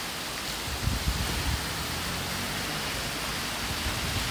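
Heavy rain pouring steadily on a street and rooftops, an even rushing hiss. About a second in there is a brief low rumble lasting under a second.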